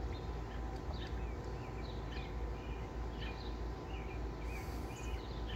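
Birds chirping: short, thin, high chirps scattered through the middle, over a steady low outdoor rumble.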